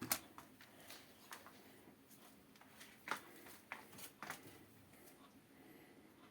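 A few faint, scattered clicks and taps in a quiet room, the loudest just after the start and a small cluster about three to four and a half seconds in.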